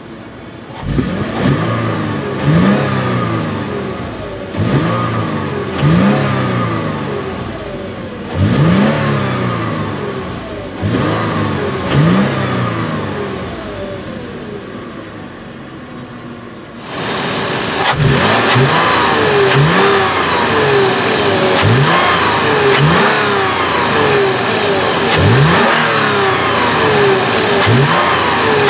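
The 4.0-litre V6 of a Toyota 4Runner is revved in short blips about every two seconds, each rising and then falling back toward idle. At first it is heard muffled from inside the cabin. About 17 seconds in it switches to a louder, brighter sound from the open engine bay, with the revs coming more quickly.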